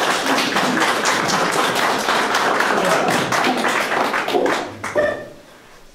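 Small audience clapping, a dense patter of many hands that dies away about four and a half seconds in, with one short sharp sound as it ends.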